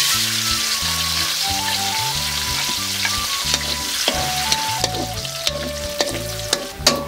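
Cashew nuts dropped into hot oil in a large metal wok, sizzling loudly at once, with the frying hiss slowly easing. From about halfway, a metal ladle stirring the nuts clinks and scrapes sharply against the wok.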